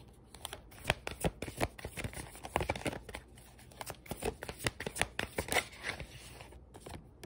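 A deck of tarot cards being shuffled by hand: a run of quick, irregular card flicks and slaps that thins out about six seconds in.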